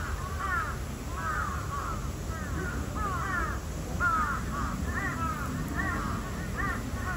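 Crows cawing over and over, several calls overlapping, over a low steady background rumble.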